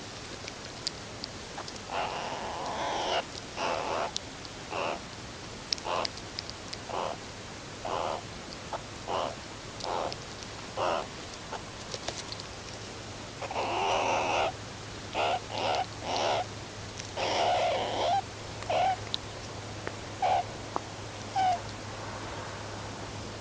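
Meerkats calling: a run of short calls about one a second, with a few longer, louder calls among them, over a steady hiss.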